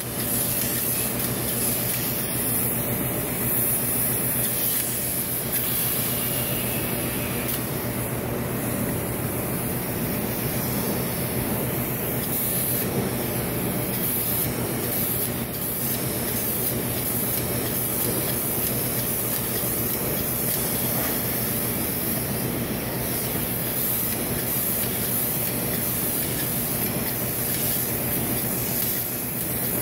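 Grey Expandothane liquid roof coating sprayed from a hose-fed spray gun: a steady hiss over a continuous machine hum from the spraying rig.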